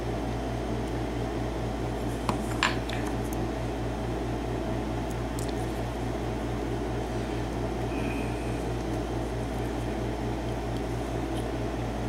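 Steady low background hum, with a few faint metallic clicks about two and a half seconds in as tweezers pick the pins out of a padlock plug.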